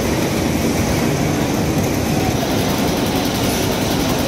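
Loud, steady low rumble of fishing-harbour noise, like engines running, with no distinct events.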